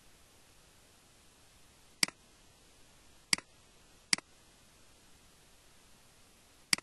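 Four sharp computer mouse button clicks, irregularly spaced (about two seconds in, twice more over the next two seconds, and once near the end), each a quick press-and-release pair, over a faint steady hiss.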